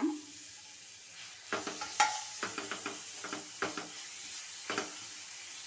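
Grated raw mango sizzling in hot oil in a kadai, with a steady hiss. From about a second and a half in, a spatula scrapes and knocks against the pan a dozen or so times as the mango is stirred into the tempering.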